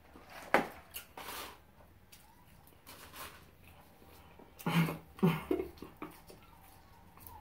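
Close-up mouth sounds of eating and drinking: a sip through a drinking straw near the start, then chewing of fries. About five seconds in come two short throaty vocal sounds.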